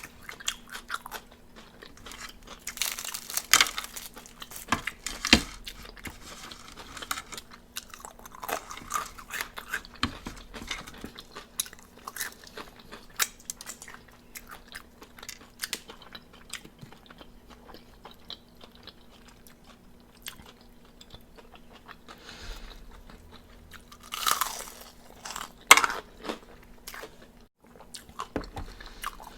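Crunching and chewing of crispy fried chicken wings, with bigger crunchy bites a few seconds in and again near the end.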